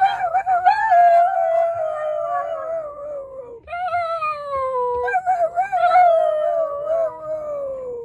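A miniature beagle howling: three long howls, each sliding slowly down in pitch, the middle one shorter than the others.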